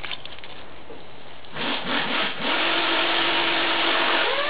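Electric motors and gearboxes of a battery-powered ride-on toy Hummer running with its mud-caked wheels spinning, stuck in soupy mud. A whine rises about a second and a half in, holds steady over a loud grinding rush, then drops in pitch as the power is let off at the end.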